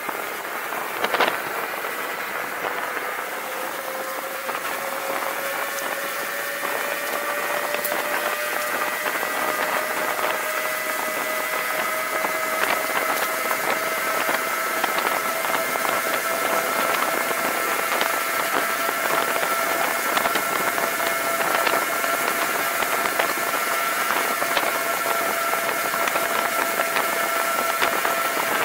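Kaabo Wolf Warrior 11+ electric scooter's hub motors whining under hard acceleration, the pitch rising over the first half and then holding steady near its top speed of about 80 km/h, with wind rushing past. A brief knock about a second in.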